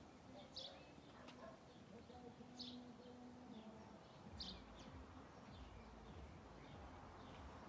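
A few faint, short, high bird chirps spaced a second or two apart, over near silence.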